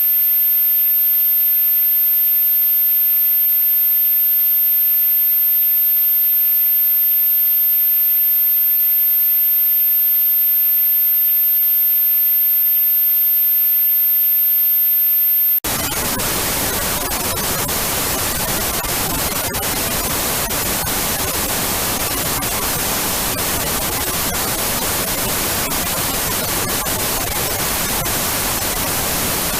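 Old analog TV static. First comes a thin hiss with a steady, very high-pitched whine over it. About fifteen seconds in it cuts suddenly to a fuller, deeper static hiss with faint crackles in it.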